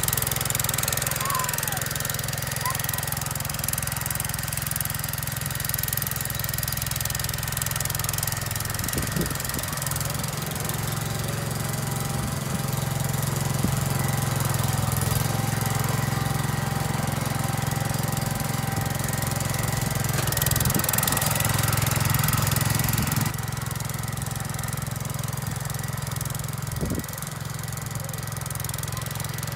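1975 Gravely Commercial 12 walk-behind tractor running steadily under load, driving its 28-inch Snow Cannon snow thrower, a low engine drone with a thin steady whine above it. The level drops suddenly about 23 seconds in.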